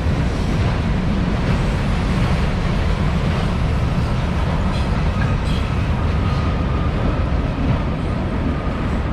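Freight train rolling past at close range: a steady, loud rumble of wheels on rails.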